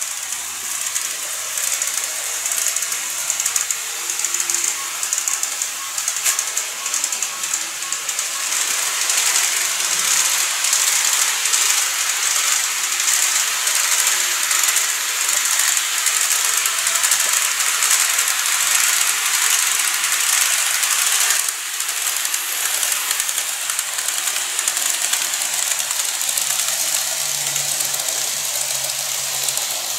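KATO N-gauge electric model trains running on the layout's track: a steady high-pitched whirring hiss from the motors and wheels, with a dense rattle of fine clicks. The sound dips slightly about two-thirds of the way through.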